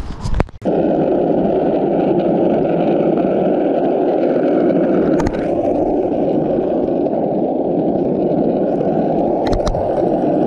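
Steady, loud rolling noise of wheels running over rough pavement. It starts abruptly about half a second in after a short knock, with a couple of faint clicks later on.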